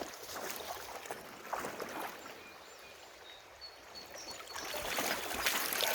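Water splashing and trickling around a minnow trap held in the river shallows, minnows flopping inside it. It eases off in the middle, and the splashing picks up again near the end.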